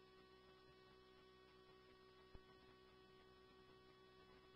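Near silence between radio transmissions: a faint steady hum, with one faint click a little past two seconds in.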